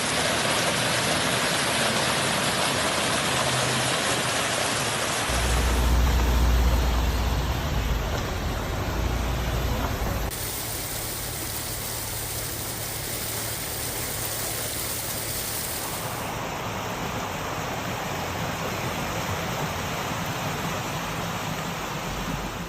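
Steady rushing noise of floodwater and heavy rain, changing suddenly about 5, 10 and 16 seconds in, with a deep rumble between roughly 5 and 10 seconds.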